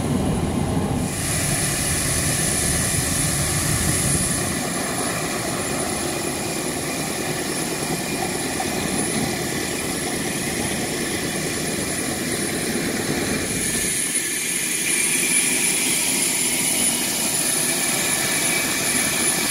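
Steady high-pitched jet turbine whine over a broad rushing noise. The sound shifts abruptly about a second in, and near 14 s the low rumble drops away.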